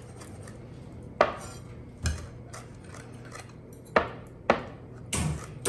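Chef's knife chopping fresh flat-leaf parsley on a wooden cutting board: a quick run of light taps, with four louder knocks of the blade on the board.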